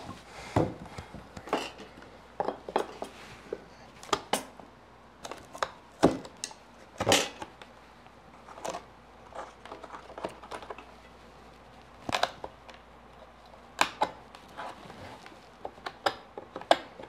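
A hand knife cutting along marked lines on a wooden tenon: short, sharp cutting and scraping strokes of the blade in the wood, coming irregularly about one or two a second.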